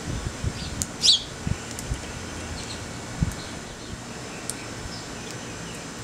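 Sparrows chirping: one clear chirp about a second in, then a few fainter ones, with some low thuds in the first few seconds.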